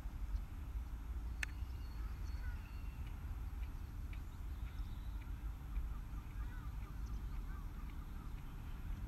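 Outdoor ambience: a low, uneven rumble of wind on the microphone, with small birds chirping faintly now and then and a single sharp click about a second and a half in.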